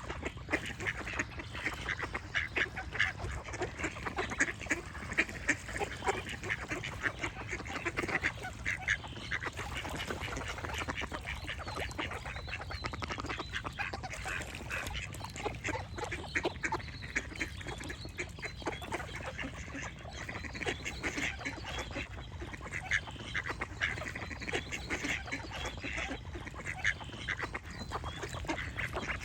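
A group of ducks quacking continuously, many short calls overlapping one another, over a steady low background rumble.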